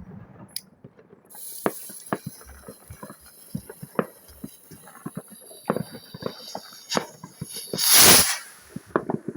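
Fireworks going off: scattered cracks and pops, with a steady high hiss from about a second in. About eight seconds in comes one loud half-second burst, a whoosh or bang.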